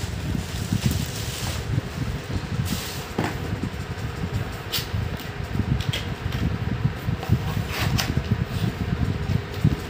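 A cardboard projector box and its bubble-wrap packing being handled and turned over, with a few short sharp crinkles and taps over a steady low rumble.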